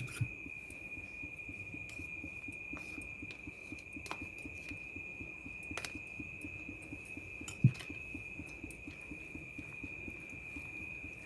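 A few soft clicks of a spoon against a bowl while ginger-garlic paste is added to prawns for marinating, the loudest about two thirds of the way through. Under them run a steady thin high whine and a low pulsing hum.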